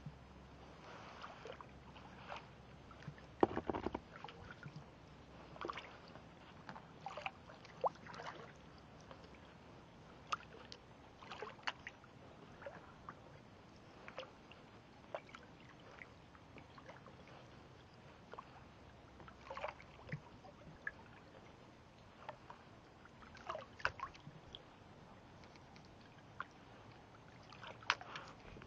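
Faint water lapping with small, irregular splashes and drips.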